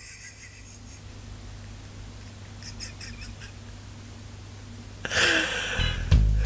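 A man laughing almost silently, then a loud breathy burst of laughter about five seconds in.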